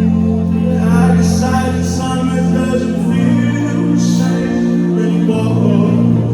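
Loud music with long, deep bass notes and singing; the bass note shifts about three seconds in and again about five seconds in.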